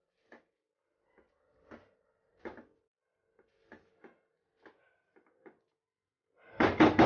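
Silicone spatula stirring thick masala gravy with whole brinjals in a nonstick pan: scattered soft scrapes and dabs over a faint steady hum. Near the end comes a quick run of loud knocks, about five a second.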